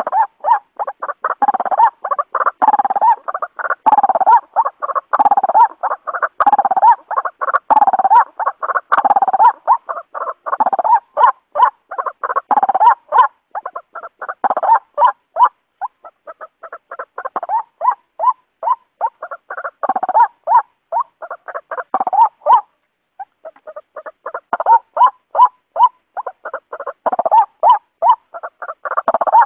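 Waterhen calling: a rapid, continuous run of short repeated notes, several a second, with a brief break about three-quarters of the way through.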